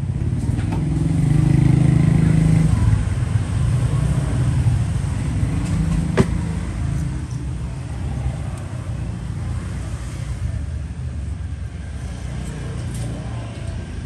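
Road traffic: a vehicle engine's low rumble swells to its loudest about two seconds in, then settles into a steady traffic rumble. A single sharp click comes about six seconds in.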